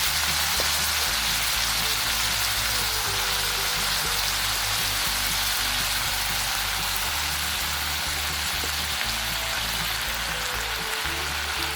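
Food frying in a hot pan with a steady sizzle, under background music with a low bass line.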